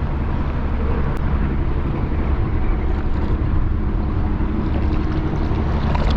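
Strong wind buffeting the microphone on a small fishing boat, a steady low rumble.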